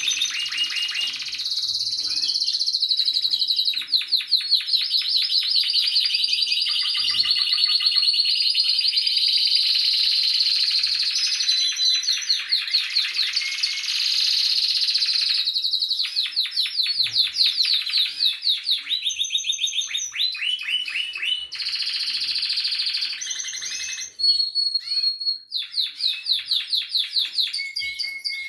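Spanish Timbrado canaries singing: a continuous song of fast trills and rapidly repeated notes, with some long held whistles.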